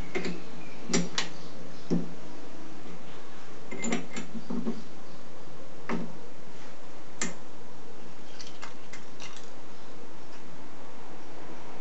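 Metal clicks and clinks of a chuck key working the jaws of a lathe's four-jaw chuck, and a small brass block coming out of the jaws. Separate sharp knocks, a quick cluster about four seconds in, and lighter ticks near the end.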